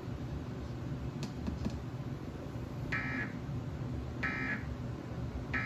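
Emergency Alert System End-of-Message tones: three short warbling digital data bursts (SAME "NNNN" code) just over a second apart, starting about three seconds in, over a low steady hum. They signal that the alert broadcast is over.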